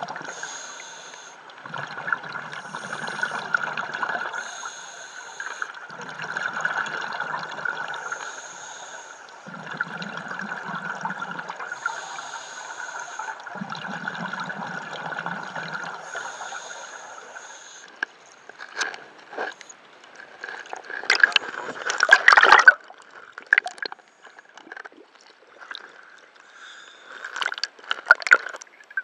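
Scuba diver breathing through a regulator underwater: a regular cycle of bubbling exhalations and hissing inhalations, about one breath every four seconds. About two-thirds of the way in the breathing stops, and irregular splashes and knocks follow as the camera breaks the surface. The loudest burst comes a few seconds after that.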